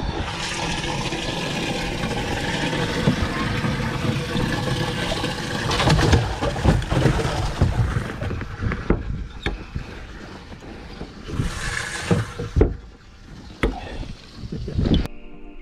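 Water sloshing and splashing at the side of a bass boat as a bass is handled over the side, with scattered knocks on the hull and deck.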